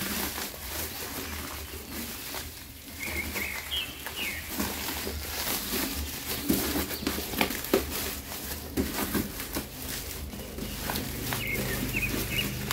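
Black plastic bag and bubble wrap crinkling and rustling as a parcel is unwrapped by hand, with many irregular crackles.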